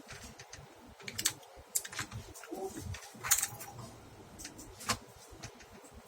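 A handful of sharp clicks and taps at uneven intervals from a laptop being handled, the loudest about three seconds in.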